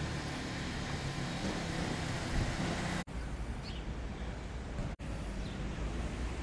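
Steady street noise: a low hum of traffic with an even hiss, cut off sharply twice for a split second, about three and five seconds in.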